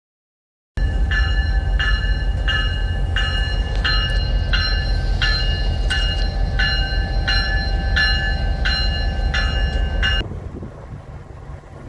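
Train rumbling along the track while a bell rings steadily about twice a second. Both start abruptly just under a second in and cut off about ten seconds in.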